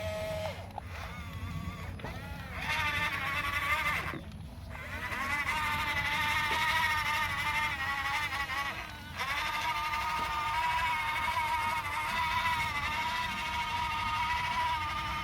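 Electric drive motors of radio-controlled model construction machines whining under load, in three long runs whose pitch wavers slightly as the load changes, over a low rumble.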